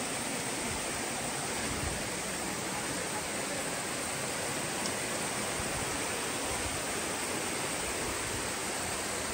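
Small mountain stream cascading over rocks in a little waterfall: a steady rush of falling water.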